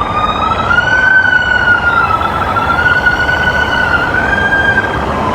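Emergency-vehicle siren wailing steadily, its pitch slowly rising and dipping, over a loud rushing noise.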